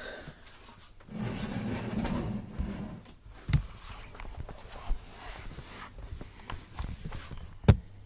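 Rustling, shuffling and scuffing of someone moving about in a small room, with two sharp knocks, one at about three and a half seconds and a louder one near the end.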